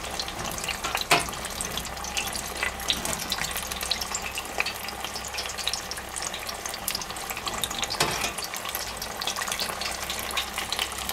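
Spring rolls wrapped in rice paper deep-frying in hot oil in an electric deep fryer: a steady sizzle full of fine crackling. A couple of sharper clicks, about a second in and again near the end, come from metal tongs knocking the wire fryer basket as the rolls are turned.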